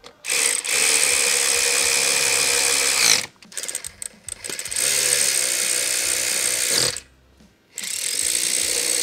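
Cordless drill-driver with a socket extension spinning the chain-guard bolts in: three runs of steady whirring, the first about three seconds long, the second about two, the third starting near the end.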